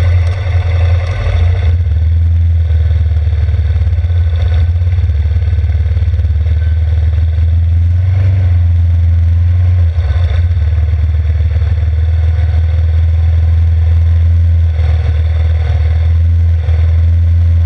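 Yamaha Grizzly 600 ATV's single-cylinder four-stroke engine running steadily while the machine rolls through a grass field, with a couple of brief dips in level about ten and fifteen seconds in.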